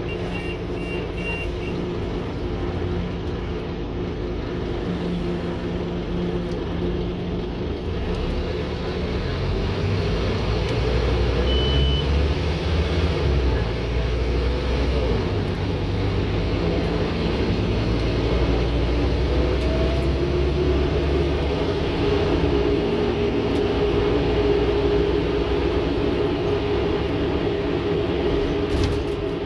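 Scania N230UD OmniCity bus's five-cylinder diesel engine and drivetrain heard from inside the saloon while the bus is on the move. The engine note gets louder and climbs about ten seconds in as it pulls harder, then stays steady. The uploader calls this bus a tired old beast.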